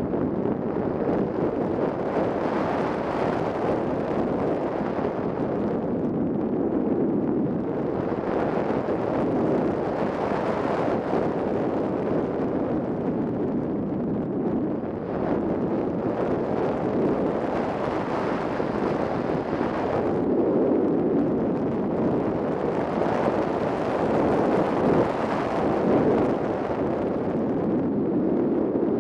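Air rushing over the onboard camera of a 3 m Ka8b scale model glider in flight: a steady rush of wind noise that swells and eases every few seconds as the model banks and turns, with no motor heard.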